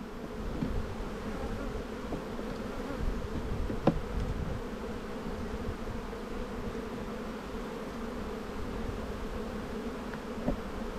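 Honeybees humming steadily over an open Langstroth hive. A couple of short wooden clicks, about four seconds in and again near the end, come as the frames are shifted apart.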